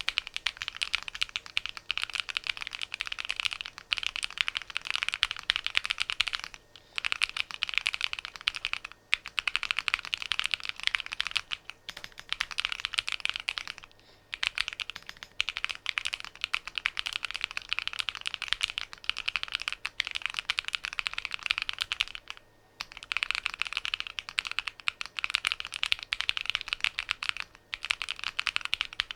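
Fast typing on a home-built Alice-layout mechanical keyboard: a dense stream of key clicks, broken by brief pauses every few seconds.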